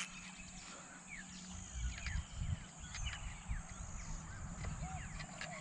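Pondside wildlife at dusk: a steady high insect trill with scattered short falling chirps, and a few low rumbles on the microphone about two seconds in. Near the end, a frog starts croaking in short repeated calls.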